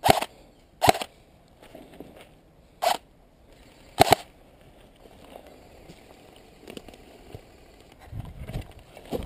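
Airsoft rifle fired in single shots: four short, sharp shots within the first four seconds or so, unevenly spaced. Near the end, rustling and scraping of movement through dry grass.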